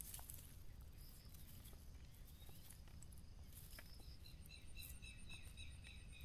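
Quiet outdoor ambience with faint rustling and small clicks of a mesh shrimp trap being handled. From about four seconds in, a faint rapid series of high chirps, about five a second.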